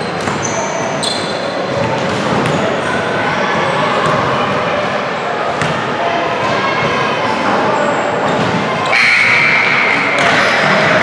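A basketball bouncing on a gym's hardwood court amid indistinct voices and crowd chatter echoing in a large gymnasium, with brief high squeaks. A steady high-pitched tone starts suddenly about nine seconds in and holds for a second or two.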